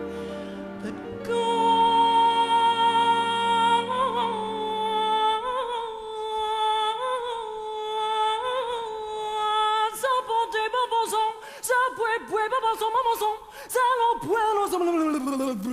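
A female stage singer's solo showpiece: a long held high note over a sustained chord, then ornamented runs up and down, then short choppy notes and a long swoop down in pitch near the end.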